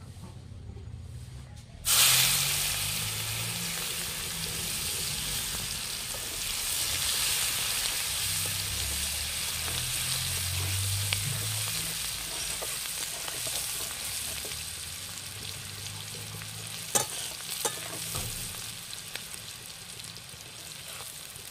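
Chopped onion dropped into hot mustard oil in a kadai, starting with a sudden loud sizzle about two seconds in, then frying steadily while being stirred with a metal spatula. A few sharp clicks of the spatula against the pan come near the end.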